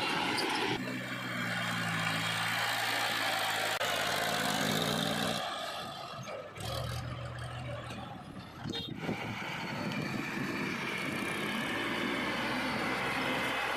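Diesel engine of a JCB 3DX backhoe loader running as it loads mud. The engine note changes abruptly a few times.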